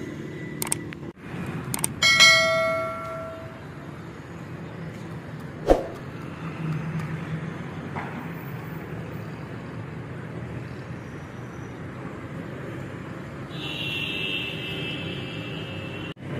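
Steady street traffic noise, with a subscribe-button sound effect near the start: two quick clicks, then a bell ringing out and fading over about a second and a half.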